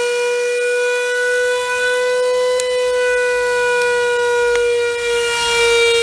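Beko WM5140W washing machine's brushed universal motor, hot-wired straight to the mains and running free with its belt off. It gives a loud, steady high whine whose pitch wavers slightly.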